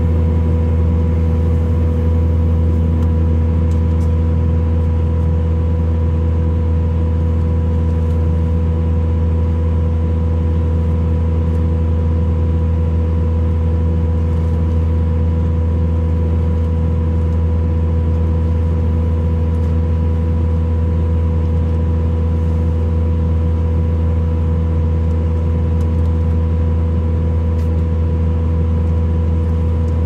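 Bobcat skid steer's diesel engine running at a steady speed, heard from inside its cab: a loud, unchanging low hum with a steady whine above it.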